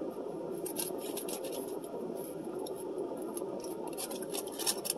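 Eating sounds: a plastic fork clicking and scraping in a foil-lined styrofoam takeout tray, with chewing. They come as a scattered run of short crinkly clicks over a steady low hum, the sharpest clicks just before the end.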